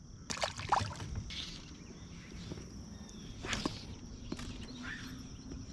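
Scattered light rustles and clicks of handling at the water's edge, a few louder in the first second and again past the middle, over a faint steady high-pitched drone of insects.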